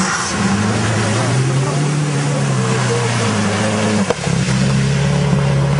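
Subaru Impreza rally car's turbocharged flat-four engine revving hard as the car ploughs through a deep water crossing, with the rush of splashing spray over it at first. About four seconds in a sharp knock breaks in, and the engine note then holds steady.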